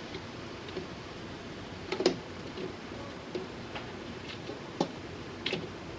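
A few scattered light clicks and knocks, irregularly spaced, the sharpest about two seconds in, over a steady low hiss.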